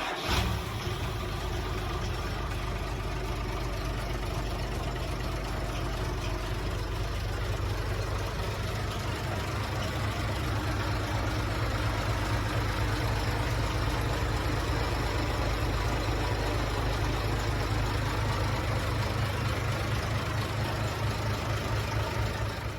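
A Yamaha DY45G fishing boat's inboard diesel engine comes in suddenly at the start, just after being started, then idles steadily with a deep, even rumble.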